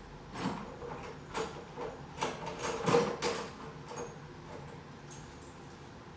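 Metal hand tools clinking and knocking as a socket is picked out and handled: a string of short knocks through the first four seconds or so, loudest about three seconds in.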